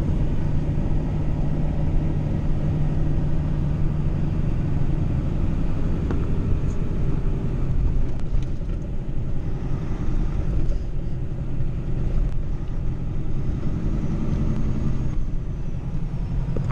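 Pickup truck driving at a steady speed: a low, steady engine drone mixed with tyre and road noise.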